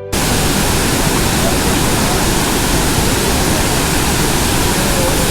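Loud, steady rushing noise, typical of wind blowing across the microphone, cutting in abruptly just after the start.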